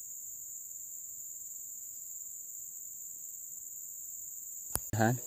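Steady high-pitched buzzing of insects in the riverside vegetation, with a sharp click near the end.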